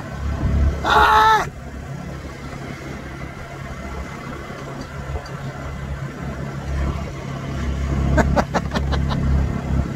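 Golf cart driving along a paved cart path: a steady low hum and rumble. A brief voice about a second in is the loudest moment, and a few sharp clicks or rattles come about eight seconds in.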